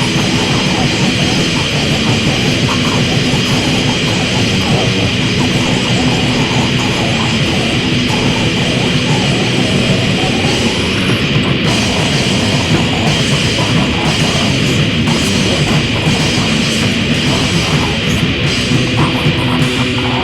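Death grind / noise grind music: a dense, harsh, continuous wall of distorted guitar and drums, loud and unbroken throughout.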